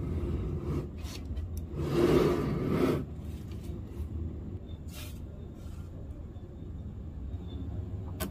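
Small magnetic balls being handled and pressed together. A rubbing scrape lasts about a second, a couple of seconds in, with a few light clicks around it, over a steady low hum.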